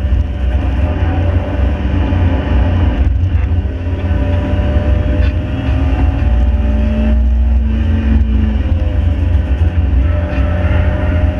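Mk5 Ford Fiesta's 1.7 Puma four-cylinder engine pulling hard at speed over heavy road rumble, its pitch drifting slowly with brief dips about three seconds in and again near nine seconds.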